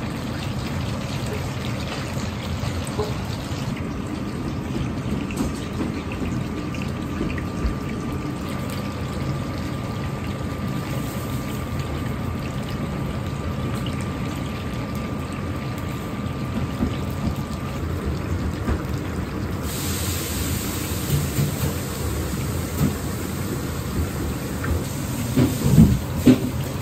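Firm tofu cubes coated in potato starch deep-frying in soybean oil in a large iron wok, the oil sizzling and bubbling hard without a break. A brighter hiss joins about two-thirds of the way through, and a few louder clunks come near the end.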